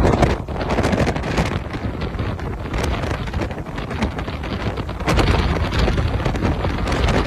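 Strong wind buffeting the microphone: a rough, rushing noise with a deep rumble, growing louder about five seconds in.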